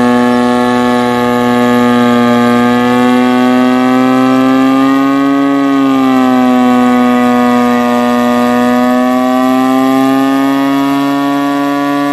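Twin-supercharged Mazda 12A rotary engine in a Leyland tractor, running on light throttle while pulling a tractor-pull sled. It is a loud, steady, high-pitched drone. The pitch rises slightly about five seconds in, drops back, then climbs slowly toward the end.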